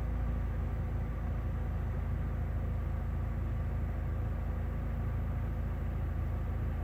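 2013 Mitsubishi Lancer Evolution X MR idling steadily: a low, even engine drone with faint steady whining tones above it. These are the odd sounds the owner links to the air-conditioning unit.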